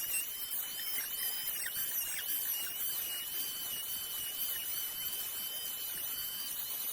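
Router spindle on a CNC Shark running with a steady high whine. The pitch dips slightly now and then as the bit takes load while carving the board.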